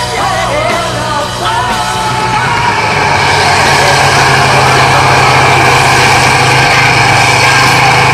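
Off-road competition truck's diesel engine running as the truck crawls across a steep side slope, getting louder about three seconds in and then holding steady.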